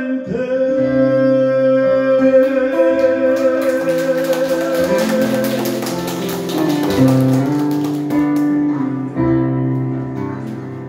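Acoustic guitar and digital piano playing the closing bars of a slow ballad, with a long held note through the first half and the final chords slowly fading toward the end.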